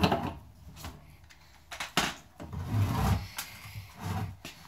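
A hand deburring tool scraping around the edge of a freshly cut hole in a fuel tank, followed by several short knocks and scrapes of handling.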